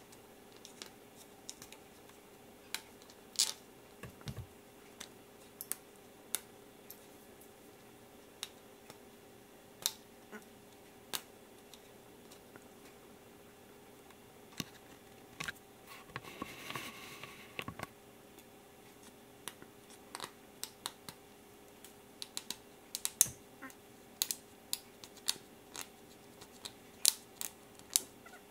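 Scattered small clicks and taps of fingers handling and pressing on an HP EliteBook 8540w heatsink-and-fan assembly with its thermal pads, more frequent in the second half, over a faint steady hum. A brief rustle lasts about two seconds a little past halfway.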